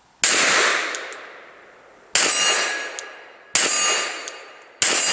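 Four slow, deliberate 9mm pistol shots from a Glock 34 at a hanging steel plate, spaced one and a half to two seconds apart. Each shot has a long decaying tail, and the last three are followed by the ringing clang of the hit steel. The first shot, which the shooter says he mashed, has no ring.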